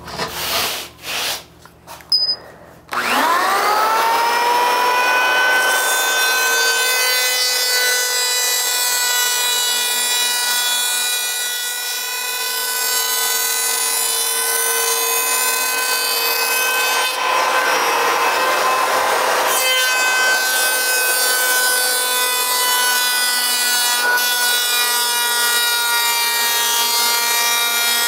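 Electric hand planer shaving a foam surfboard blank. After a few short knocks it is switched on about three seconds in, whines up to speed, then runs with a steady whine over the hiss of the cut, which grows noisier for a few seconds about two thirds of the way through.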